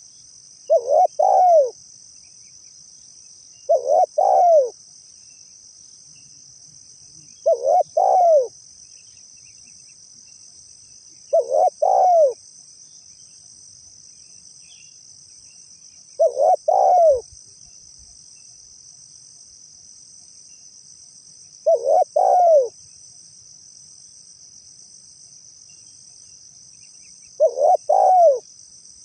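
Spotted dove (tekukur) cooing: seven short phrases of two or three coos each, repeated every four to six seconds. A steady high-pitched insect chirring runs underneath.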